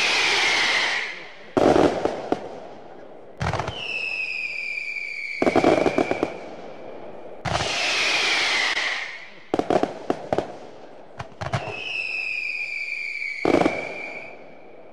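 Fireworks going off: a sharp bang about every two seconds, several of them followed by a high whistle that falls in pitch.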